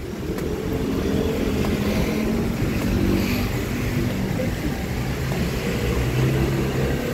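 A motor vehicle's engine running with a steady low hum over general traffic noise.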